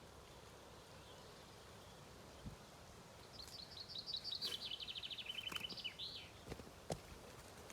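A songbird sings one phrase of about three seconds: a fast run of high notes that steps down in pitch into a trill and ends in a short flourish. There is faint outdoor background noise, and a few soft knocks come near the end.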